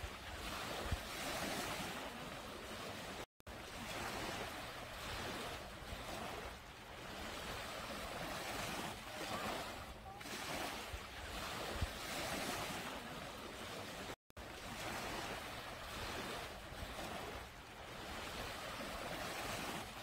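Small waves breaking in the shallows and washing up a sandy beach, a continuous hiss of surf and foam that swells and eases every few seconds. The sound cuts out completely for a split second twice.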